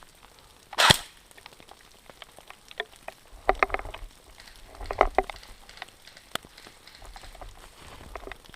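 Sounds of an airsoft skirmish: one loud, sharp crack about a second in, then two short clusters of quick clicks and knocks.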